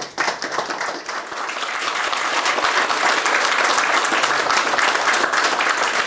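Audience applauding, a dense patter of many hands clapping that builds over the first couple of seconds and then holds steady.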